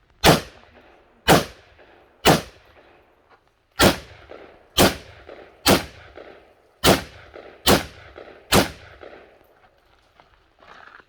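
Rifle shots fired in quick succession: nine sharp cracks about a second apart, with a slightly longer pause after the third, each trailing off in a brief echo.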